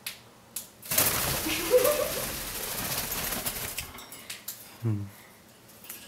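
Green-cheeked conures' wings flapping in a flurry for about three seconds, starting about a second in, as the startled birds take off from the cage top.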